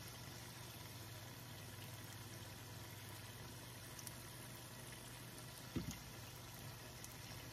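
Hot oil bubbling steadily in a frying pan as wontons and egg rolls deep-fry, over a faint steady low hum. A brief low knock comes about three-quarters of the way through.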